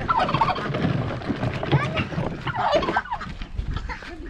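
Farmyard poultry calling over one another in a busy clamour that thins out after about three seconds.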